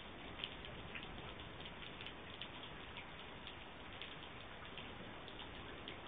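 Steady hiss of falling rain with irregular sharp ticks of drops landing close by, heard through a Ring Video Doorbell Pro's microphone.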